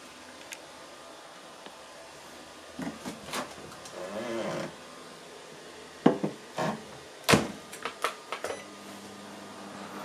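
Microwave oven being loaded and started: the drop-down door swings open with a drawn-out creak, a plastic cup of water is set down inside with a couple of sharp knocks, and the door shuts with a loud thump. A few quick clicks of the control buttons follow, and the oven starts up with a steady hum near the end.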